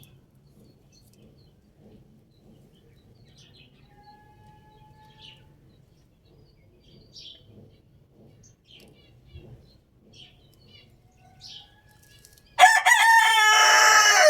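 Faint scattered chirps over a low background hum. Near the end a rooster crows loudly in one long crow that runs on past the end.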